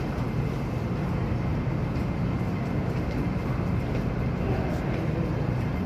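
MTR K-train electric multiple unit running along the platform with a steady rumble of wheels and motors.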